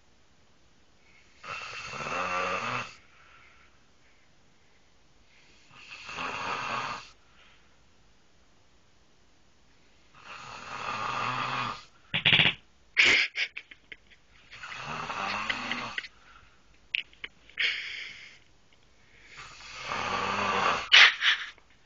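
A man snoring loudly in his sleep: five long snores, one every four to five seconds, with a few short, sharp sounds between the third and fourth.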